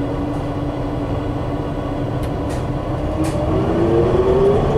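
Interior ride noise of a Gillig BRT bus with a Cummins Westport natural-gas engine and an Allison transmission, running on the highway: a steady low rumble and road noise under a whine that climbs in pitch about three and a half seconds in. A few faint ticks of rattle come around the middle.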